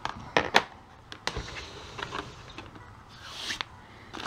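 A few sharp knocks and clicks of things being handled on a wooden tabletop, strongest in the first second and a half, then a short rustle a little past three seconds in.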